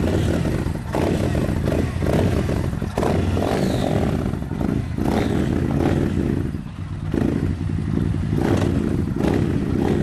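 Yamaha MT-01's big V-twin running loud through aftermarket DAM mufflers with the dB killers removed, revved in repeated throttle blips that rise and drop back, with brief dips about a second, three seconds and seven seconds in.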